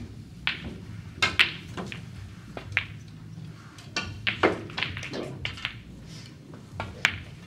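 Snooker balls clicking against each other, a dozen or so sharp clicks with a short ring, irregularly spaced, over a low steady hum.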